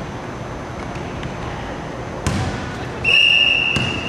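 A basketball bouncing on a hardwood gym floor, then about three seconds in a referee's whistle blows one loud, steady blast of about a second, calling a foul and stopping play.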